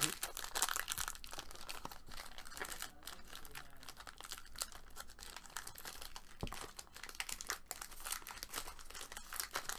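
Plastic trading-card packaging crinkling and tearing as a new box of football cards is opened: an irregular run of dense crackles.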